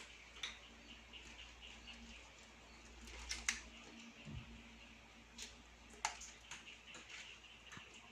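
Faint high squeaks from young kittens, several a second at first, with scattered sharp little clicks and scratches, two of them louder.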